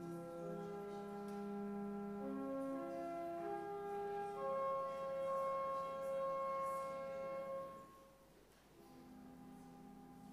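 Church organ playing slow, sustained chords. The music falls away briefly about eight seconds in, then a quieter held chord follows.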